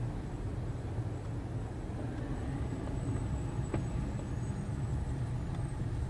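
Steady low rumble of a car's engine and tyres heard from inside the moving car's cabin, with a single sharp click a little past halfway.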